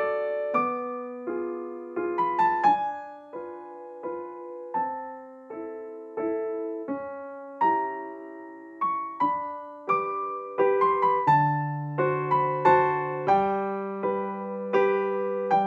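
Background piano music: a gentle melody of struck notes and chords, each note fading away, the notes coming faster in the last few seconds.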